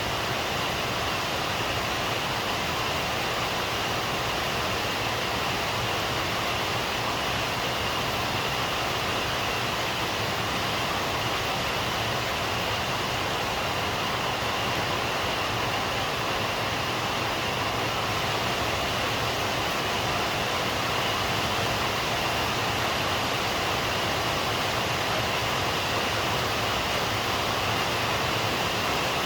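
Rain falling steadily, a constant even hiss with no thunder.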